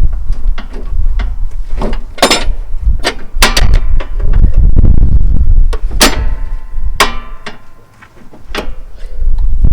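Irregular metal clanks and knocks as a lawn tractor's mower deck and its fittings are handled and fitted, two of them ringing on briefly about six and seven seconds in.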